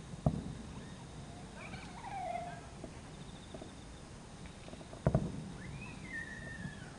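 Two distant fireworks shells bursting, each a sharp boom with a short low rumble, about five seconds apart. Faint gliding calls sound between the booms.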